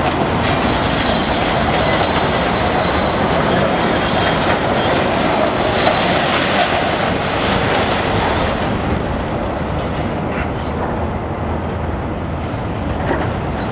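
High-reach demolition excavator working: its engine running under load while the hydraulic crusher jaws break reinforced concrete and rubble crumbles and falls. A faint high metallic squeal runs through the first two-thirds, then fades.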